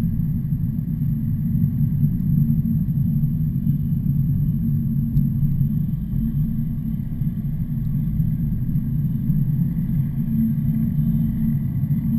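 Steady low rumble of a heavy truck's engine and road noise, holding even with no rise or fall.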